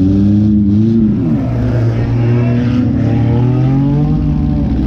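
Compact demolition-derby car's engine revving hard, its pitch climbing and falling in waves as the throttle is worked.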